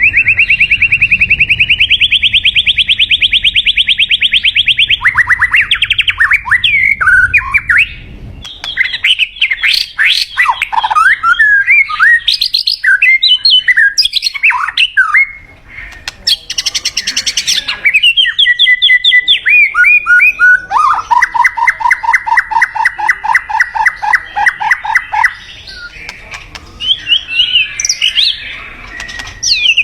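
White-rumped shama singing loud, varied whistled phrases with sliding notes. It opens with a fast high trill about four seconds long, and there is a lower, fast rattling trill in the latter part.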